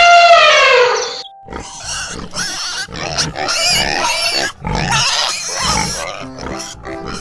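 Animal calls: a loud, drawn-out pitched call that falls in pitch and stops about a second in, then a run of short, rough, irregular calls. A few steady musical notes come in near the end.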